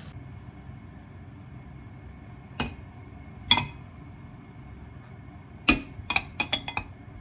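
Ceramic clinks as a rice bowl and a spoon knock against china plates while fried rice is turned out of the bowl. There are three separate clinks, then a quick run of about six lighter taps near the end.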